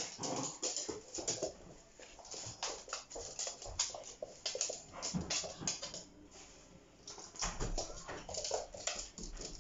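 Two puppies play-fighting on a hard laminate floor: scuffling and irregular clicks of claws and paws, with occasional puppy vocal noises. It goes quieter for a moment past the middle, then the scuffling picks up again.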